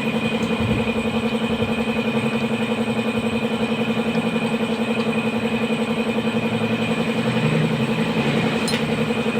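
A motor running steadily at constant speed: an even, rapidly pulsing hum that does not change.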